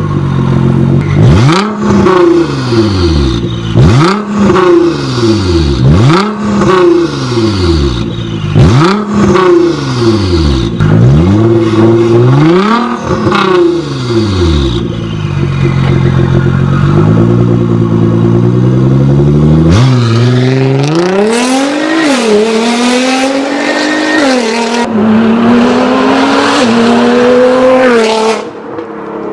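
Sports car engine and exhaust revved hard while standing still, about every two seconds, each rev climbing sharply in pitch and falling back, then settling to a steady idle. About twenty seconds in, after a cut, a car accelerates hard, the pitch climbing and dropping back at each gear change.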